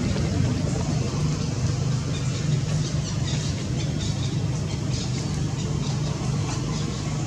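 Steady low mechanical hum, like an engine running, with faint short high chirps scattered through it.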